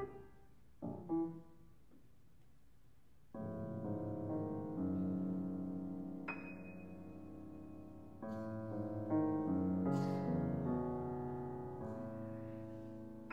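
Grand piano playing a contemporary classical étude: a few short, detached chords, a pause of about two seconds, then sustained chords that ring on and slowly die away, with a high note struck about six seconds in and new chords entering about two seconds later.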